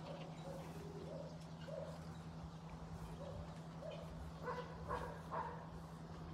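A dog barking repeatedly: a run of small barks, then three louder barks in quick succession about four and a half seconds in, over a steady low hum.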